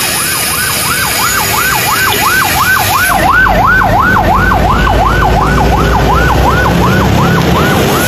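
Ambulance siren sounding in a fast yelp, its pitch rising and falling about three times a second, over a low vehicle rumble.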